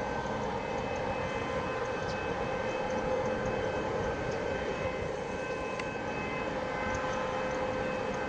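Boeing 737 jet airliner on final approach, its engines heard from a distance as a steady rushing noise with a held whine over it.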